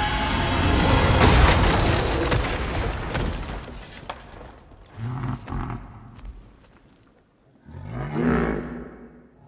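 Film sound effects: a loud rumbling, crackling noise that fades over about four seconds, then two short, low creature growls from Man-Thing, the swamp monster, about five and eight seconds in.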